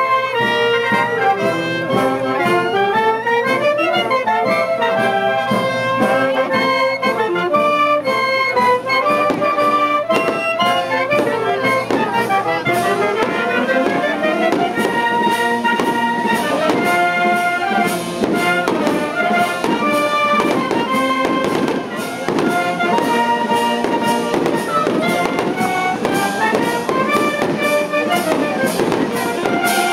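Small village wind band of clarinets, saxophones and brass playing a tune outdoors, continuous and lively.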